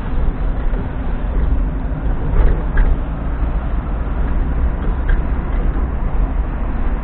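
Car driving slowly along a town street, heard from inside the cabin: a steady low rumble of engine and road noise.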